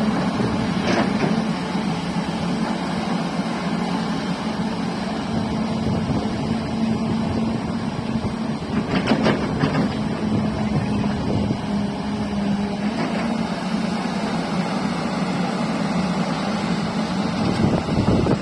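Hyundai excavator's diesel engine running steadily with a constant hum, with a few short knocks about a second in and again around nine seconds in.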